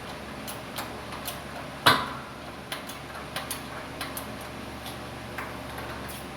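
Irregular sharp metallic clicks and ticks from a shop press and bearing-removal cups loaded against a hub bearing in a steering knuckle, with one loud sharp crack about two seconds in as the parts shift under pressure.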